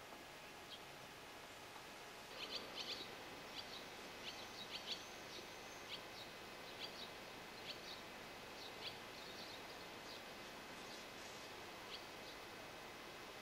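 Faint twittering of a flock of house martins and barn swallows: a quick run of short, high chirps about two seconds in, then scattered single chirps through most of the rest, over a steady hiss.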